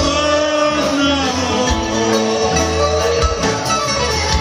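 Live Greek popular-song (laïka) music playing an instrumental passage between sung lines: a gliding, bending melody over a steady bass.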